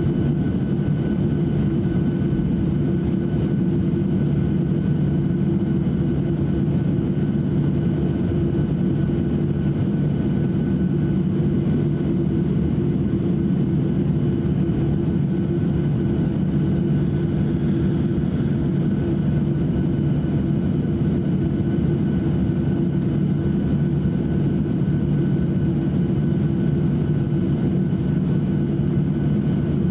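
Inside the cabin of a Boeing 737-800 taxiing: the steady drone of its CFM56 jet engines at taxi power, with a thin steady whine over it.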